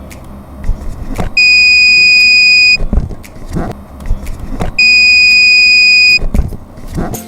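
Electronic alarm buzzer sounding two long, loud, steady high-pitched beeps of about a second and a half each, with a few handling knocks between them.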